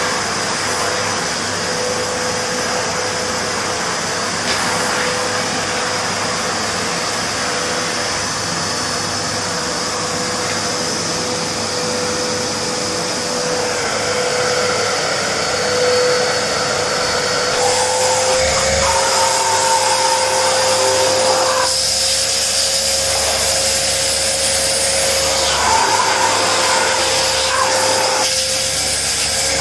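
Vacuum cleaner running while vacuuming a floor: a steady whine over a loud rush of air. In the second half the tone and hiss change several times, with a higher whistle coming and going.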